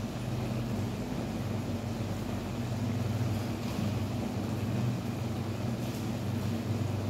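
Kitchen cooker hood extractor fan running with a steady low hum.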